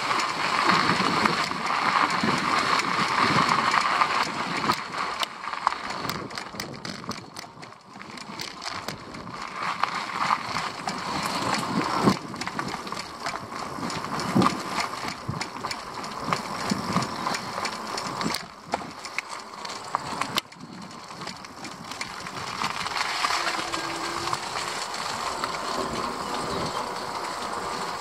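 A small open vehicle rolling along a rough path, its frame and front rack rattling with irregular knocks over the tyre noise. It is louder for the first few seconds.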